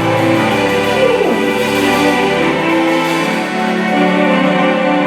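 Background music of sustained chords, the held notes shifting every second or so.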